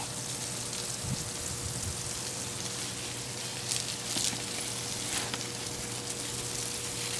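Garden hose spraying a steady hissing stream of water onto grass and plants, with a few brief louder splashes about four and five seconds in as the dog bites at the stream.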